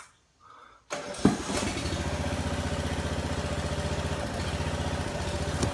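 The small engine of a hydraulic foundation-jacking pump unit comes in suddenly about a second in and runs steadily, with a sharp knock just after it begins. It is powering the hydraulic cylinders that push and lift a settled wall on its piers.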